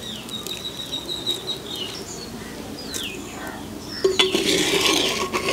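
Steel cup and pan clanking and scraping as the excess cooking water is scooped off boiled green gram (mung beans), louder from about four seconds in. Birds call in the background: a thin high whistle at first, then short falling chirps.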